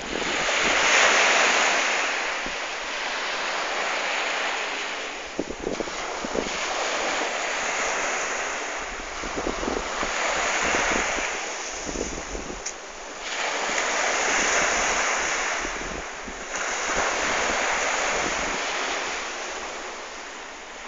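Waves washing in on a shore, a hissing rush that swells and fades every few seconds, with wind rumbling on the microphone.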